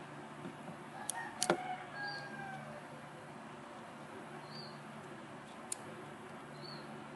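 Sharp plastic clicks from the spring-loaded SD card slot of a Canon compact digital camera as the card is pushed and released: two close together about a second and a half in, the loudest, and a single one near six seconds. A faint bird calls in the background early on.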